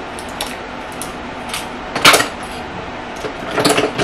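Small hard plastic items clicking and clattering as makeup products and brushes are set down and picked up. The loudest clack comes about two seconds in, with a few lighter clicks before it and a quick cluster near the end.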